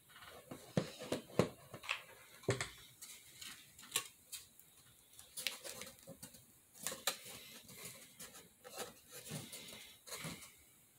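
Hands handling and pressing a hot-glued cardboard panel onto a cardboard tissue box: scattered light knocks, taps and scrapes of cardboard, irregular throughout.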